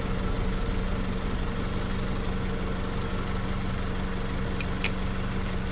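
2003 Honda Civic LX's four-cylinder engine idling steadily, a constant even hum. A faint click near the end.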